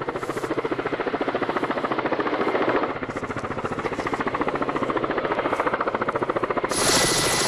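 Helicopter rotor beating in a fast, even throb. Just before the end the sound turns suddenly louder and hissier, with a high steady whine over it.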